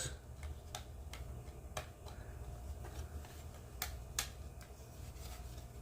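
Four faint, sharp clicks of a clear plastic model-kit window piece being test-fitted onto its locator pins and handled, over a low steady hum.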